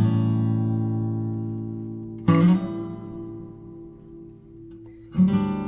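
Background music on acoustic guitar: a strummed chord at the start and another a little over two seconds in, each left to ring and fade, then quicker rhythmic strumming near the end.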